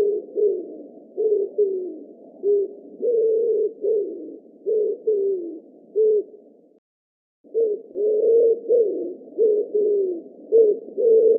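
Pigeons cooing: many short, low, overlapping coos, some sliding down at the end, with a brief break in the sound a little past the middle.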